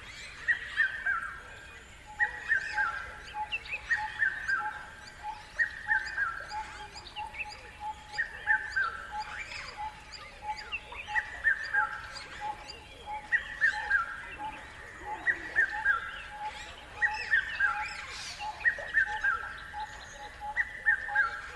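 Wild birds singing in a natural riverside ambience: one bird repeats a short, falling phrase about every two seconds over a steady run of quick, lower notes from another animal, with a few other scattered calls.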